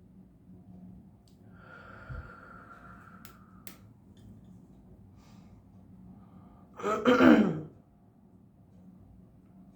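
A faint steady ring, as of a tuning fork, for about two seconds, with a couple of light clicks, then about seven seconds in a loud breathy sigh falling in pitch.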